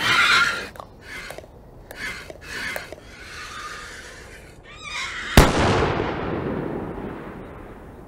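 A person's rapid, sobbing breaths, then a single pistol shot about five seconds in whose echo dies away slowly over the next two seconds.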